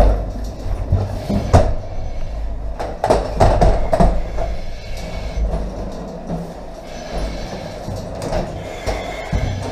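Irregular knocks, clanks and scrapes of a crawling firefighter's gear and breathing apparatus against the steel wire-mesh cage of a breathing-apparatus training maze, over a steady low rumble.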